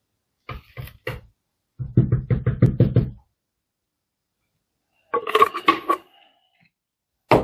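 Plastic dust container of a Parkside 20V cordless handheld vacuum being handled and tapped to shake crumbs loose: a few single clicks, then two fast runs of hollow plastic knocks, about eight a second, the second starting near the end, with a short rattle between them.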